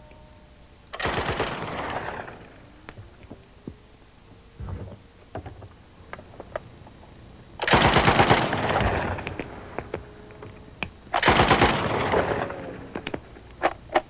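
Uzi 9mm submachine gun fired full-auto with no muzzle brake, in four bursts of rapid shots. The second burst is very short, and the last two, each over a second long, are the loudest.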